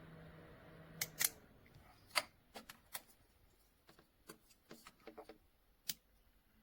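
A low steady hum stops about a second in, right after two sharp clicks. About a dozen more irregular clicks and taps follow, spaced a fraction of a second to a second apart.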